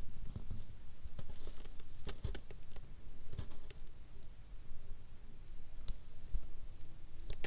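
Light plastic clicks and taps of a Lego minifigure and a small accessory being handled, as fingers try to snap macrobinoculars onto the figure's helmet; the clicks come irregularly, with a sharper pair near the end.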